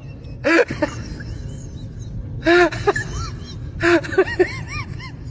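Dog whining and yelping in three bursts of short, rising-and-falling cries, over a low steady hum.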